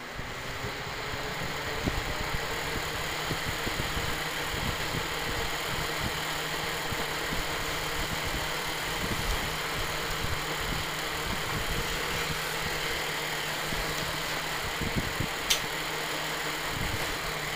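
Small electric fan heater running on high heat, its fan motor freshly oiled after seizing. The fan spins up over the first couple of seconds, then runs steadily with a rush of air and a low hum. A single sharp click comes near the end.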